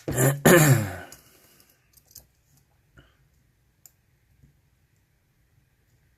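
A loud wordless vocal sound in the first second, then scattered light clicks of a dimple lock pick working the pins of a Mul-T-Lock Interactive padlock, with one pin still not set.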